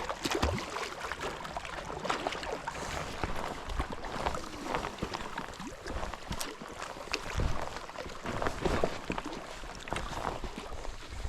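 Water lapping and splashing at a rocky lake shore, with many small irregular splashes.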